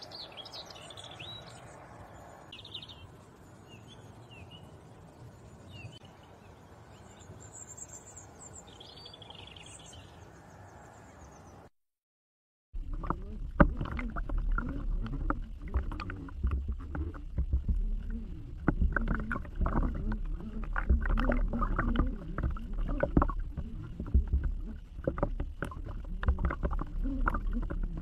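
Quiet outdoor ambience with birds chirping now and then. About twelve seconds in it cuts out, and after a brief silence the audio switches to an underwater camera's microphone: low water rumbling with many clicks and knocks as the lures are drawn through the water.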